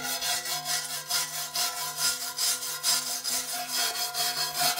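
Steel wire brush scrubbing flaky rust off the inside of an old cast-iron toilet cistern, in quick scraping back-and-forth strokes about four a second.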